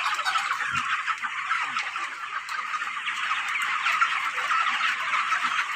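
A large flock of 25-day-old broiler chickens calling all at once, a steady din of many overlapping clucks and cheeps.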